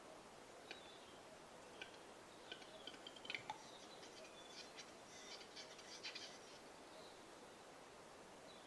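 Male western capercaillie singing its display song, faint: dry single clicks that come faster over the first three seconds and end in a louder click, followed by about two seconds of rapid, scratchy high notes.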